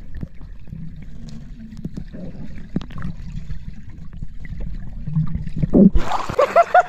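Muffled underwater sound in a swimming pool: a low rumble and bubbling with scattered faint knocks. About six seconds in it opens into open-air splashing, then a person's voice calls out in quick repeated bursts near the end.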